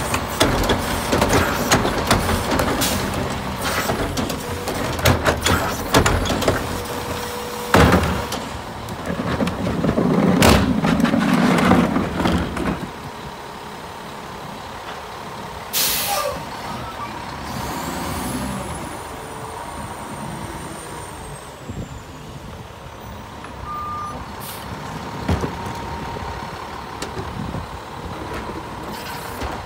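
Rear-loader garbage truck at work with its diesel running: clattering and thuds as a wheeled trash cart is tipped into the hopper, a sharp bang about eight seconds in, then a loud rush for a couple of seconds. After that the engine runs steadily and more quietly, with a short air hiss about halfway through.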